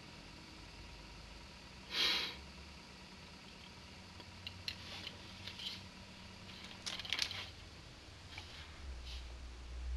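Faint steady hum of a 12 cm PC case fan running, overlaid with handling noises: a short loud rustle about two seconds in, then scattered clicks and rustles. A low rumble comes up near the end.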